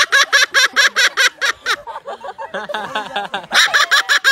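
Moluccan cockatoo giving rapid, laugh-like calls, about six or seven sharp 'ha' notes a second. The run breaks off before half-way and starts again near the end.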